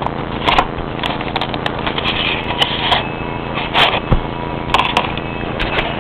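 A CD case and its cardboard slipcase being handled and slid apart: a string of irregular clicks, taps and short rustles of card and plastic over a steady background hum.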